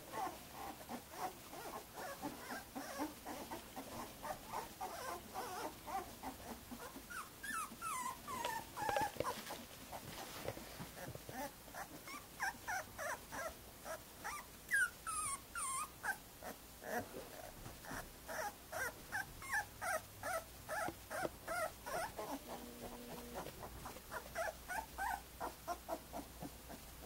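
Newborn Greater Swiss Mountain Dog puppies whimpering in a steady string of short, high squeaks, several a second. Two longer falling whines stand out, about eight and fifteen seconds in.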